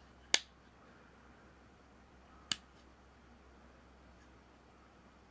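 Two sharp clicks about two seconds apart, the first louder: the small manual thumb safety of a Smith & Wesson Shield 9mm Performance Center pistol being flicked.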